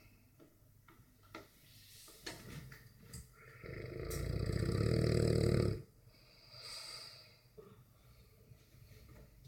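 Dogue de Bordeaux snoring in its sleep: one long, loud snore starting about four seconds in, building for two seconds and then stopping abruptly, followed by a fainter short breath.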